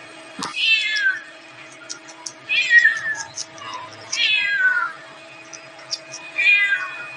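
Cat meowing four times, about two seconds apart, each meow a high call that falls in pitch.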